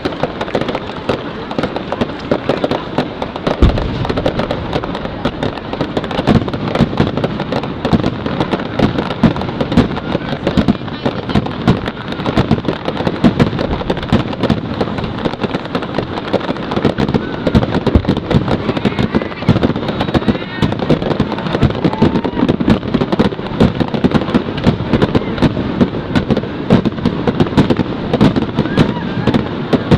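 Fireworks display: a dense, rapid barrage of aerial shells bursting, bangs and crackle overlapping, with one heavier boom about four seconds in.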